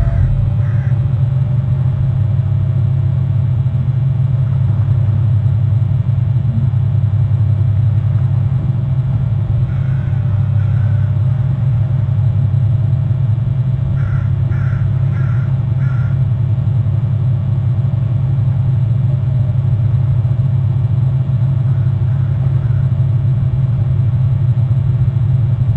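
A steady low rumble throughout, with short bird calls over it: a couple just after the start, one or two midway, and a quick run of four later on.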